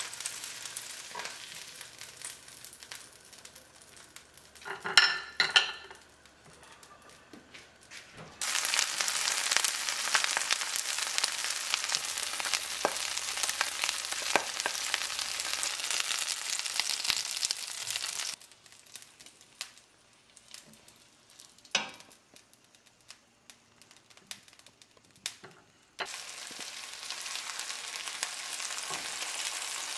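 Battered jeon (Korean pan-fried fish, zucchini and beef slices) sizzling in oil in a frying pan, in three stretches broken by quieter gaps. The gaps hold a few sharp clinks and knocks, the loudest a clatter about five seconds in.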